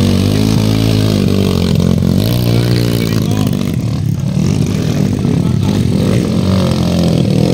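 Dirt bike engine revving hard, its pitch repeatedly rising and falling as the bike labours through deep mud.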